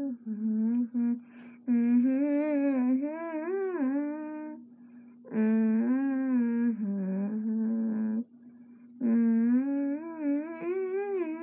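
A girl humming a tune in four long phrases with short breaks between them.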